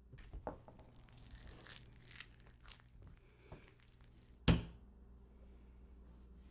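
Crinkling, rustling noises over the first few seconds, then a single sharp thump on the tabletop about four and a half seconds in, the loudest sound here.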